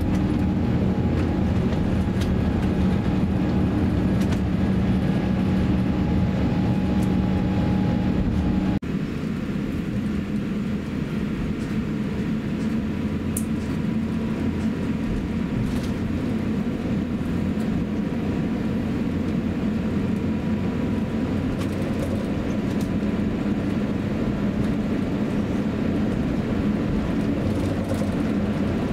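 Airliner cabin noise during takeoff in an Airbus A350-900: Rolls-Royce Trent XWB engines at takeoff power with a heavy low rumble from the runway roll. About nine seconds in the rumble drops off suddenly, leaving a steady engine drone as the jet climbs.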